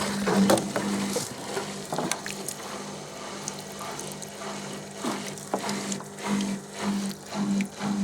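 LG direct-drive washing machine starting its spin cycle: water runs out with scattered clicks over a steady motor hum, and about six seconds in the hum begins pulsing about three times a second as the drum speeds up. The spin is working normally.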